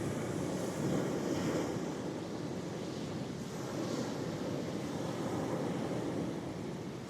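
Ocean waves washing onto the shore in a continuous low rumble that swells gently now and then, with some wind on the microphone.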